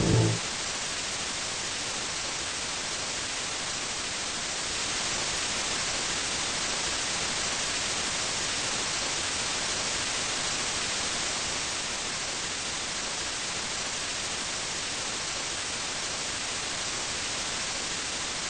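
Steady static hiss with nothing else in it, a little louder from about five seconds in.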